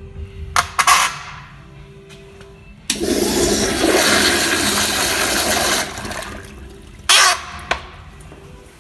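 American Standard Afwall wall-hung flushometer toilet flushing: a loud rush of water starts about three seconds in, lasts about three seconds, then eases into a quieter refill. A few sharp clicks come before the flush, and a couple of loud knocks come near the end.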